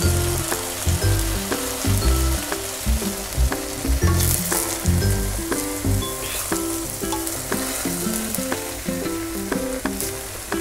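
Wooden spatula stirring and scraping rice and chopped capsicum in a pot, with a steady light sizzle from the rice cooking on a low flame.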